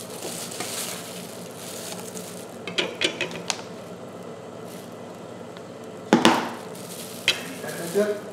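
Pot of butternut squash and pork soup bubbling steadily at a boil, with knocks and scrapes as sliced pork is moved off a wooden chopping board into a plastic tub; the loudest is a sharp knock about six seconds in.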